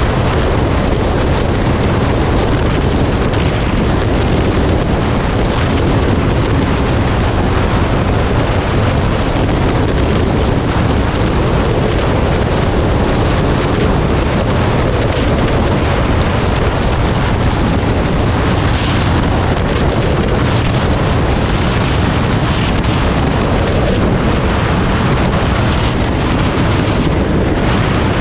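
Heavy, steady wind noise on the microphone of a moving motorcycle.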